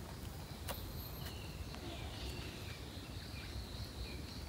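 Forest insects keeping up a steady, high, even drone. Short falling chirps sound over it, and a single sharp click comes a little under a second in.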